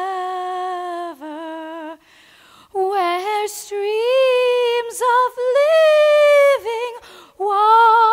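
A young woman singing solo and unaccompanied, holding long notes with vibrato, with a short pause about two seconds in.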